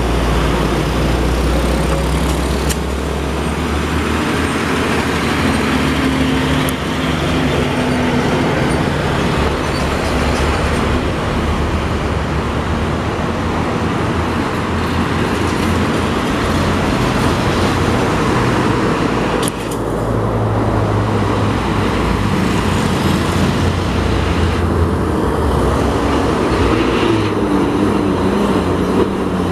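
Busy road traffic: heavy diesel trucks, cars and motorcycles passing, a steady mix of engine noise and tyres on asphalt, with truck engines rising and falling as they go by.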